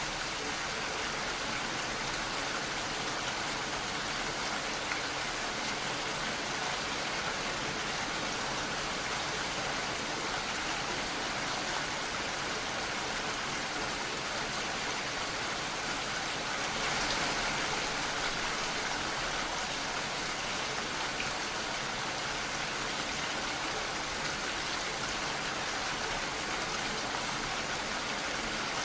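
Steady rain falling in an even hiss, swelling slightly about two-thirds of the way through.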